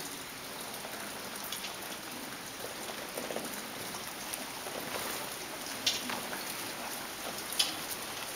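Steady, even patter like rain on a roof, with two short sharp clicks, one about six seconds in and one near the end.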